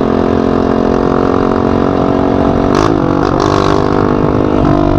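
Small dirt bike's engine running without a muffler (straight pipe) under way, a steady note whose pitch dips and picks up again briefly about three seconds in.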